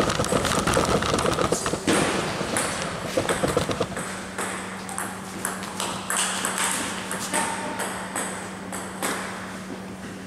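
Table tennis balls clicking off bats and tables in fast, overlapping rallies at several tables at once, thickest in the first few seconds. A steady low hum runs underneath.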